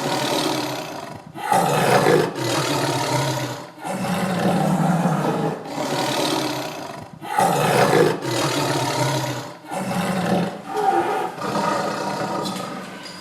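Tiger roaring and growling in a series of long, rough calls, each two to three seconds long, separated by short breaks for breath.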